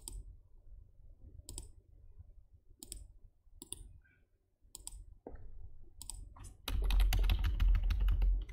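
Computer mouse clicks, single and spaced about a second apart, then from about two-thirds of the way in a louder, quick run of typing on a computer keyboard.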